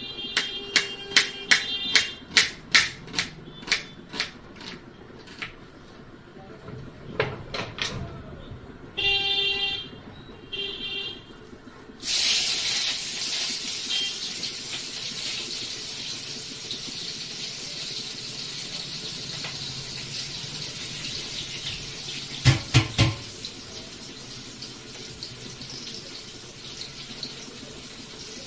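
Kitchen knife chopping an onion on a plastic cutting board: a quick run of sharp taps, about two a second. A few seconds later come two short high-pitched tones, then water runs steadily from a tap into a sink, with a few knocks near the end of the running.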